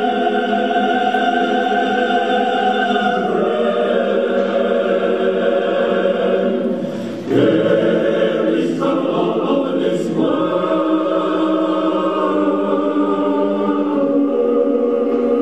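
Choral music: a choir singing slow, sustained chords that change every few seconds, with a brief dip about seven seconds in before it swells louder.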